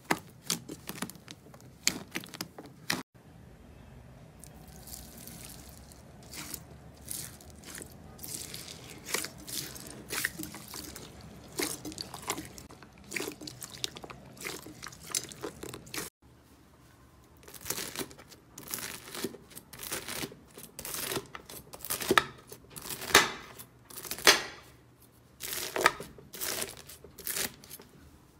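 Slime being squeezed and pressed by hand, with dense runs of small crackling and crunching pops. It comes in three stretches, with abrupt cuts about 3 and 16 seconds in.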